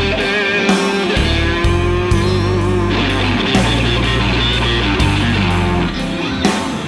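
Live blues band playing an instrumental passage: an electric guitar solo of held, bending notes over bass guitar and drums.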